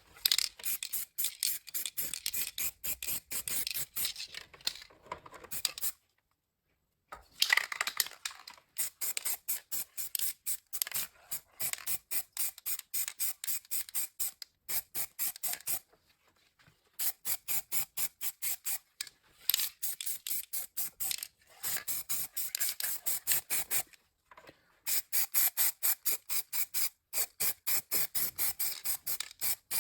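Rapid back-and-forth hand scraping strokes, about four a second, as a part of an old manual hand drill is rubbed down by hand. The strokes come in runs of several seconds with brief pauses between them.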